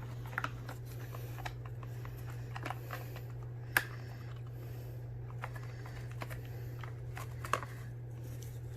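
Light plastic clicks and taps as the stick vacuum's brush bar is handled and slid out of its floor head, with a sharper click a little under four seconds in and another about seven and a half seconds in, over a steady low hum.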